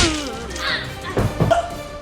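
Background music with a falling pitch glide in the first moments, then two or three quick whacks a little over a second in.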